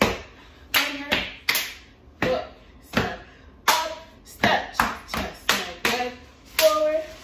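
Step dancing: sharp claps, slaps on the chest and legs, and foot stomps in an uneven beat of about two to three hits a second. The hits ring briefly in a small room.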